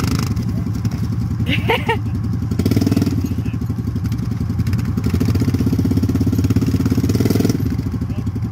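ATV engine running in deep mud, revved harder for about five seconds from near three seconds in. A short shout about a second and a half in.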